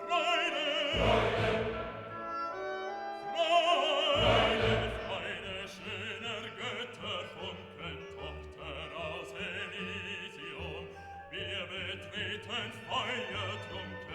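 Background music: an operatic singing voice with strong vibrato over an orchestra, loudest in the first few seconds.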